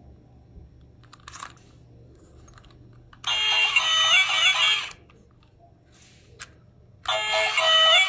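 A toy's electronic melody chip playing a beeping tune through a small speaker, in two loud phrases: one starting about three seconds in and lasting under two seconds, and another starting near the end. A few faint clicks come before it.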